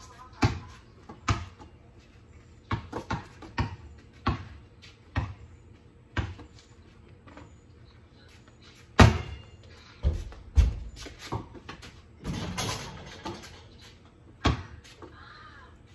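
A basketball bouncing on a concrete driveway, a series of sharp thuds at irregular spacing, with the loudest bang about nine seconds in.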